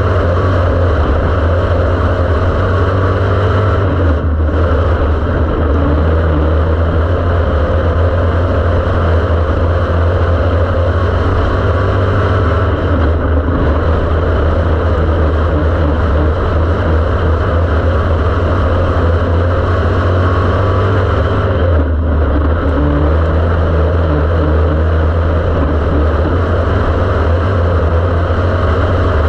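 Dirt-track race car's engine running hard at racing speed, heard from inside the cockpit: loud and steady, with a strong low rumble. The sound dips briefly three times, roughly nine seconds apart.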